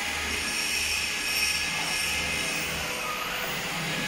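CNC router running with its spindle spinning, a steady high-pitched whine over even machine noise and a low hum, with no cutting.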